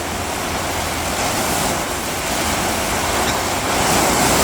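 Gale-force wind blowing hard through trees and buffeting the microphone: a steady rushing noise that swells near the end.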